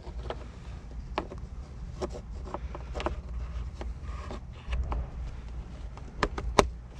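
Scattered light clicks and taps of small shifter parts being handled, over a steady low rumble, with a sharper click near the end.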